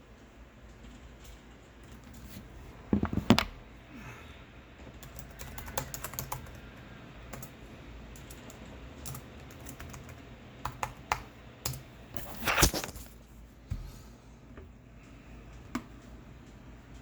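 Computer keyboard typing: scattered, irregular keystrokes, with louder clattering bursts about three seconds in and again near the middle.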